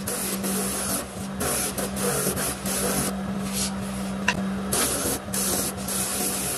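Electric bench motor humming steadily while a wooden spoon is pressed against the abrasive wheel on its shaft, giving a rough hissing sanding noise that swells and fades as the spoon is worked. The sanding eases off briefly a little past the middle while the spoon is lifted off the spinning wheel.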